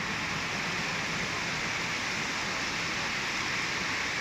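Sea surf washing on a beach, heard as a steady, even hiss with no single wave break standing out.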